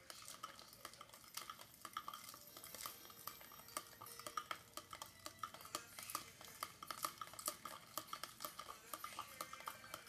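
A spoon stirring coffee in a cup, clinking against its sides in a quick, irregular run of light taps.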